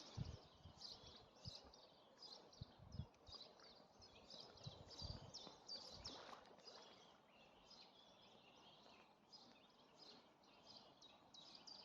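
Faint, high-pitched bird chirping: quick repeated peeps, several a second, all through. A few low thumps come in the first half.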